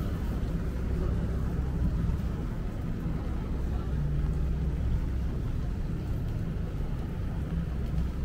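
Steady low city-street rumble with a faint, even hum underneath.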